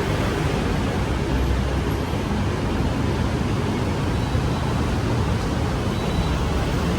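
Steady city road-traffic noise: a continuous rumble of passing vehicles with no single event standing out.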